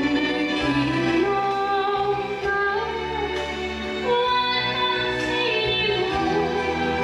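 A young girl singing into a microphone over a recorded karaoke backing track, amplified through the stage speakers, holding long notes that bend between pitches.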